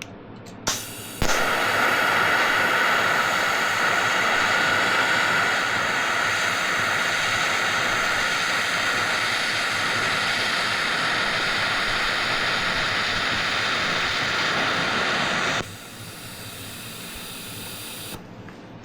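TIG welding arc: a brief crackle at the arc start, then a steady hiss for about fourteen seconds that cuts off suddenly. A quieter hiss carries on for a couple of seconds more, then stops.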